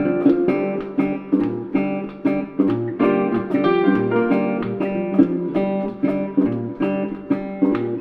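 Background music: acoustic guitar plucked and strummed in a steady rhythm.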